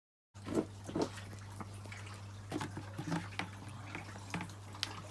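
Water sloshing and dripping in a clear plastic storage tub holding a large clown knifefish, with small knocks and clicks over a steady low hum. The sound cuts in suddenly a moment after the start.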